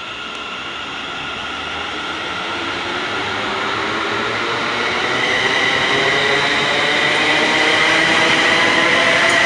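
ScotRail Class 380 electric multiple-unit train running along the platform, a steady whine of several high tones over rolling noise, growing gradually louder as it comes past.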